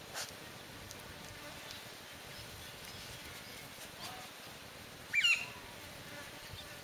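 An Australian cattle dog (blue heeler) puppy gives one short, high-pitched yelp about five seconds in, over a faint steady background hiss.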